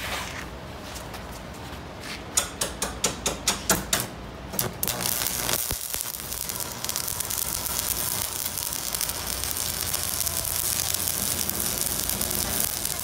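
Stick (covered-electrode) arc welding on steel: a quick run of about eight sharp clicks, then about five seconds in the arc crackles and hisses steadily as a bead is laid along the seam.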